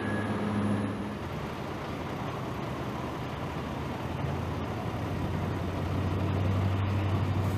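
Container reach stacker's engine running steadily as the machine drives carrying a shipping container on its boom, with a low hum that grows louder towards the end.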